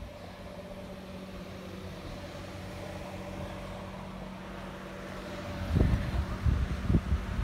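Electric floor fan running with a steady hum. Near the end its air stream starts buffeting the microphone in loud, irregular low gusts.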